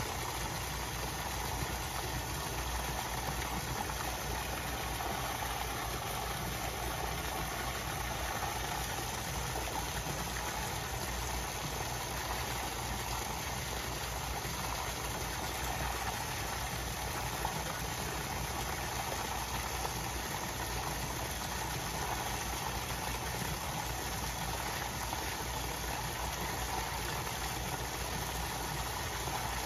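Steady churning of water with a low, even hum underneath, typical of a koi pond's pump and water return running.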